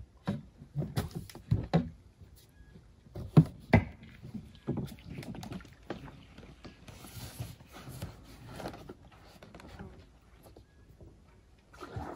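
A run of knocks and thumps against a birch bark canoe as a man climbs aboard from the rocks and settles into it, the loudest about three and a half seconds in. This is followed by softer water sounds as the canoe pushes off and is paddled away.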